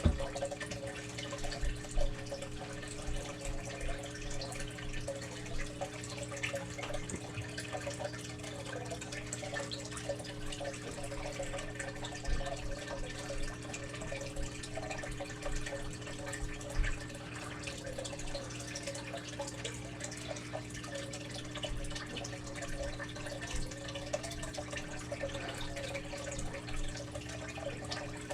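Water trickling and dripping in a fish tank over a steady hum, with a few light knocks.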